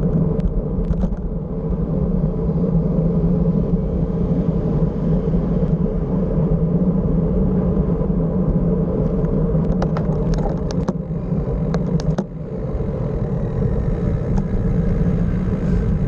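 Steady wind and road rumble picked up by a bicycle-mounted camera while riding on asphalt, with a few brief clicks about ten to twelve seconds in.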